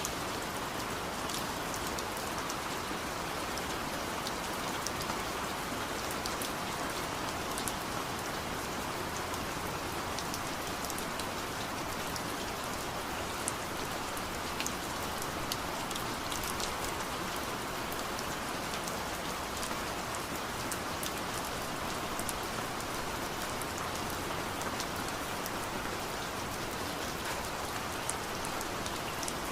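Steady rain falling, an even hiss with many small drop ticks hitting a surface.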